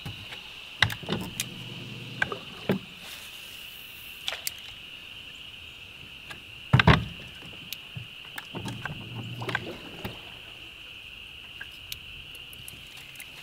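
Scattered knocks and clunks of fishing gear against a boat, the loudest about seven seconds in, over a steady high insect drone.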